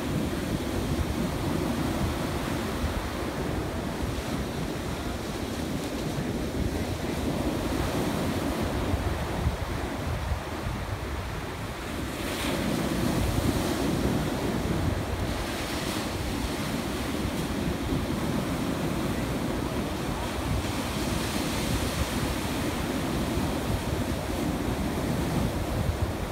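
Ocean surf breaking and washing up the beach, with wind rumbling on the microphone. The wash swells louder about halfway through.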